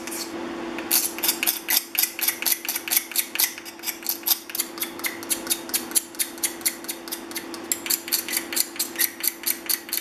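Hand scraper with a burred edge peeling the old finish off a hardwood plane knob in quick short strokes, about three or four a second, starting about a second in. A steady low hum runs underneath.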